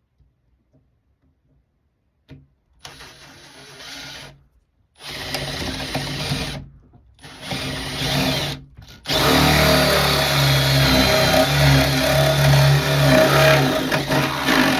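Power drill boring a 25 mm hole through a door with a flat (spade) bit: three short bursts starting about three seconds in, then a loud steady run through the last six seconds.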